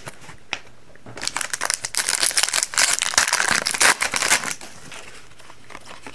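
A foil wrapper of a hockey card pack crinkling and crackling as it is handled, starting about a second in and lasting about three and a half seconds.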